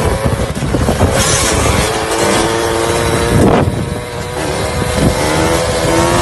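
Supermoto dirt bike's engine revving under throttle during a wheelie. The pitch drops sharply about three and a half seconds in, then climbs steadily near the end, with wind noise on the microphone.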